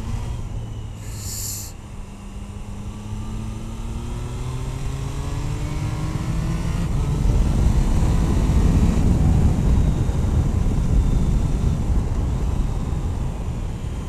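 Triumph Tiger Sport 660's three-cylinder engine under acceleration, its note rising steadily for several seconds, heard through a helmet-mounted boom microphone. From about seven seconds in, loud wind rush over the helmet takes over as speed builds. There is a brief hiss about a second in.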